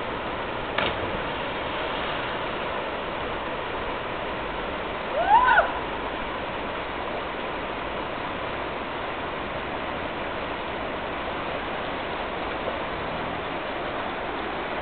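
Steady rushing of the Vrbas river's flowing water. About five seconds in, a person gives a short shout that rises and then falls in pitch.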